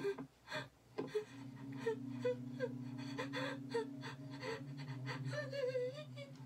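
A character's voice gasping and sobbing in quick, short breaths, about three a second, over a low steady drone, played through a TV's speakers.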